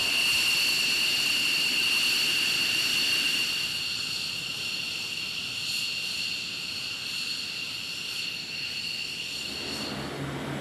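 F-15E Strike Eagle's twin jet engines running at idle on the ground: a steady high whine over a rushing hiss. About ten seconds in, it gives way to the lower drone of an AC-130's turning propellers.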